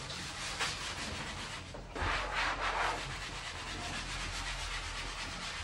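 Repeated scrubbing strokes on a painted door, rubbing paw-print dirt off its white surface, louder for about a second around two seconds in.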